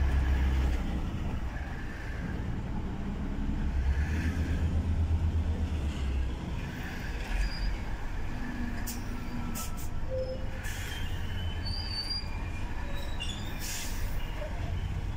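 Heavy truck's engine running at low revs as the truck creeps through traffic, heard from inside the cab, a deep pulsing rumble that swells twice. A few short hisses come in the second half.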